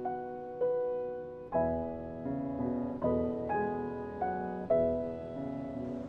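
Soundtrack music: a piano-like keyboard playing a slow, even run of notes, each struck and then fading before the next.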